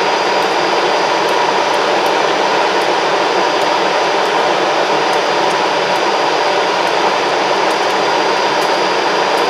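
CC 203 diesel-electric locomotive standing still with its engine idling and cooling blowers running: a loud, steady rushing hum with a faint high whine.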